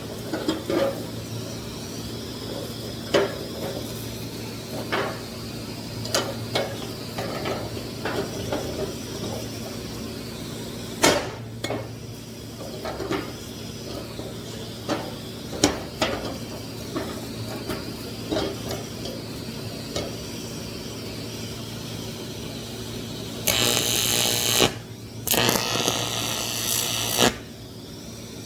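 Scattered clinks and knocks of aluminum pieces being handled, over a steady low hum. About 23 seconds in, two loud stretches of harsh buzzing, a few seconds each with a short break between: the TIG welding arc on thin 1/8-inch aluminum.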